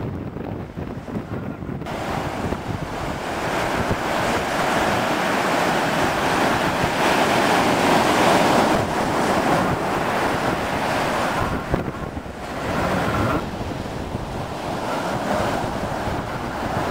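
Wind buffeting the microphone over rushing water and surf while the jet ski rides through the waves. It swells louder about two seconds in, is loudest midway, and drops briefly about twelve seconds in.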